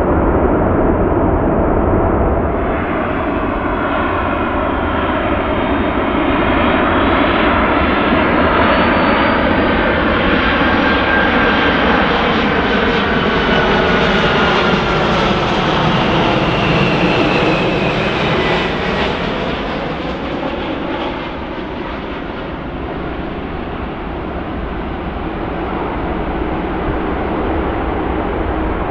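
Jet engines of an Airbus A330 airliner on final approach: a loud, steady roar and whine whose tones slide down in pitch as it passes about halfway through, easing off a little afterwards. For the first two seconds, an Airbus A380 is heard rolling along the runway after landing.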